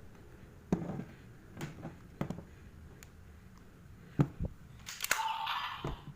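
Hard plastic toy and its packaging being handled during unboxing: a few separate clicks and knocks, then a short rustle of packaging near the end.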